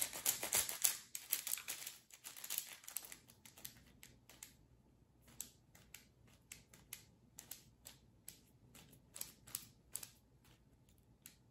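Magnetic 6x6 speed cube turned by hand: a flurry of rapid plastic clicks and clacks for the first few seconds, then slower, scattered single clicks as the layers snap into place. The owner can't tell whether the clicking comes from a loose magnet or is normal for the cube.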